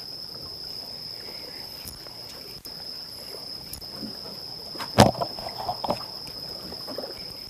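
A steady high-pitched insect trill, typical of crickets, over low sloshing water. A single sharp knock about five seconds in is followed by a few lighter clicks.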